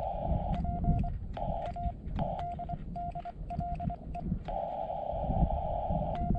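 Morse code sidetone from a portable CW transceiver: short strings of dits near 700 Hz, with the receiver's narrow-filtered hiss coming back in the pauses between them and sharp paddle clicks. The paddle is acting up.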